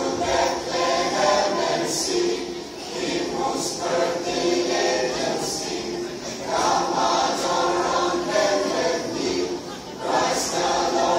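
Mixed choir singing a Christmas carol in parts, phrase after phrase, with fresh entries swelling about six and a half seconds in and again near the end.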